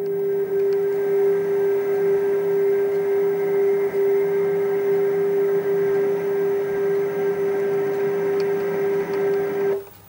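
Sawmill machinery running with a steady pitched hum, which cuts off suddenly near the end.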